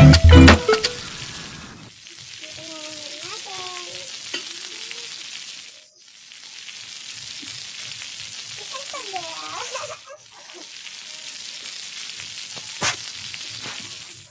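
Chicken sizzling on a charcoal grill: a steady hiss with small scattered pops.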